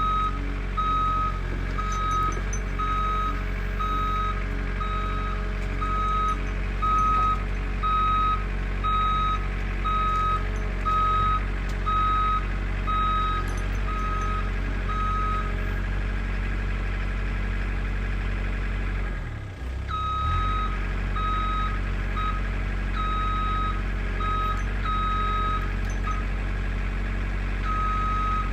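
A machine's backup alarm beeping about once a second over a steadily running engine. Partway through the beeping stops for a few seconds and the engine sound dips briefly, then the beeps start again, less evenly.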